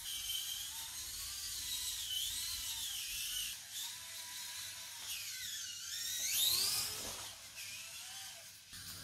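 Axial SCX24 micro RC crawler's small electric motor and gears whining as it drives, the pitch rising and falling with the throttle and climbing high about six seconds in.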